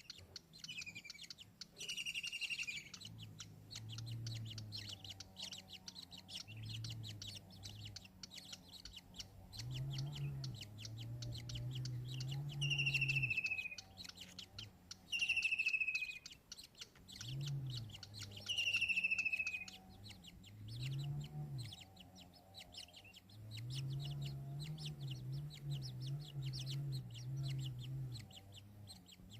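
Birds calling: five short, loud whistled notes that each slide downward, over repeated low clucking notes and a steady fine crackle.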